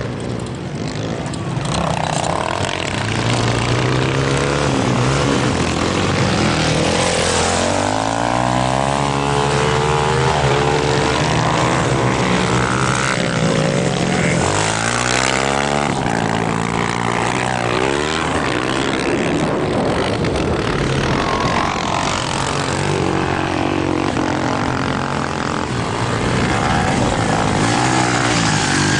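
Chinese-made motocross bikes racing on a dirt track, their engines revving up and down with the throttle, the pitch climbing in repeated runs as riders accelerate out of turns and shift.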